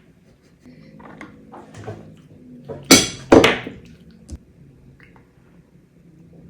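Sounds of a young child eating at the table: small clicks of dishes and cutlery, with two loud, short, noisy bursts close together about three seconds in.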